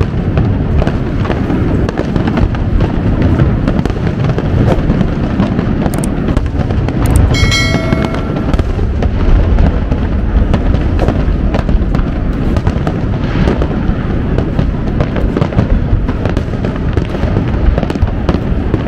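Aerial fireworks display: a continuous barrage of booming shell bursts and crackling, with no let-up. A brief whistle-like tone sounds once about seven and a half seconds in.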